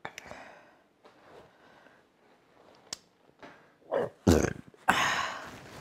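A man breathing heavily through the burn of Carolina Reaper chili wings, with soft breaths at first, then about four seconds in a sudden loud, rasping exhale that lasts nearly two seconds: a reaction to the chili pain.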